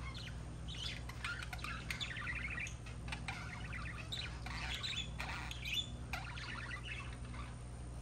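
Budgerigars singing: a busy, continuous run of warbling chatter and chirps, with a low steady hum underneath.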